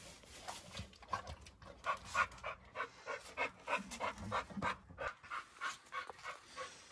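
A dog panting steadily, about three quick breaths a second.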